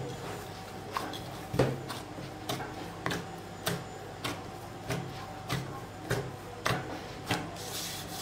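Hand kneading soft dough in a large glass bowl: a regular run of dull thumps, about three every two seconds, as the fist pushes into the dough and the bowl knocks on its mat.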